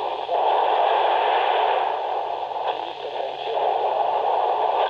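Steady static hiss of a UHF satcom channel from a Yaesu FT-60 handheld transceiver's speaker, with no voice on the channel at the moment. The hiss dips in level briefly a couple of times.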